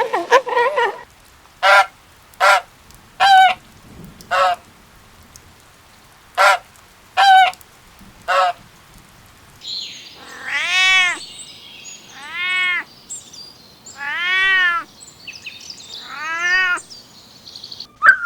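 Animal calls: a run of short pitched calls, then four longer calls that each rise and fall in pitch, with a hiss behind them.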